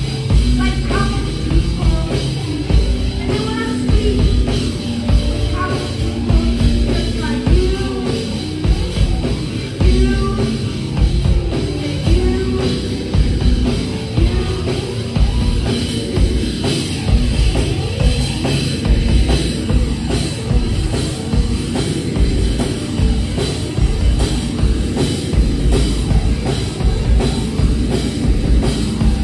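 Rock band playing live: electric guitar, bass guitar and drum kit, with a steady beat.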